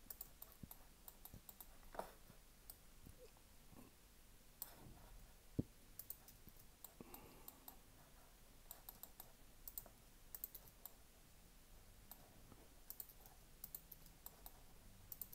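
Faint, irregular clicks of a computer mouse and keyboard over near-silent room tone.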